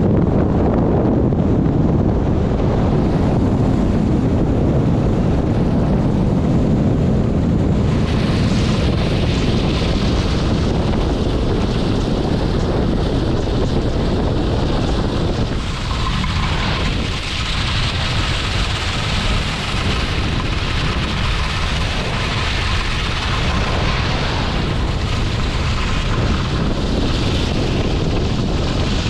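Wind buffeting the microphone of a pole-held camera on a skier moving downhill, a steady low rumble, with the hiss of skis running over groomed snow. The higher hiss grows stronger about eight seconds in.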